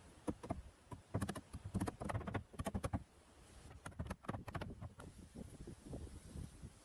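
A run of light, irregular clicks and knocks, densest over the first three seconds, then sparser and fainter toward the end.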